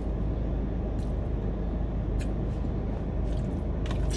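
Steady low rumble inside a car's cabin, with a few brief clicks of a fork and a plastic food container.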